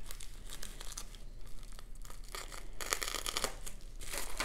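Plastic bubble mailer crinkling and crackling as a hand presses and slides over it, in irregular bursts that are loudest a little past two seconds in and again near the end.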